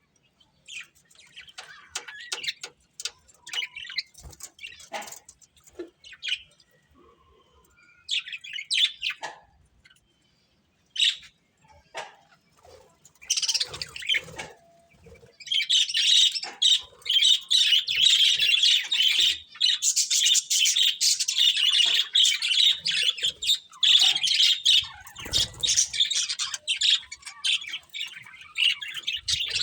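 Pet budgerigars chirping: short, scattered high chirps at first, then from about halfway a dense, nearly continuous chattering warble.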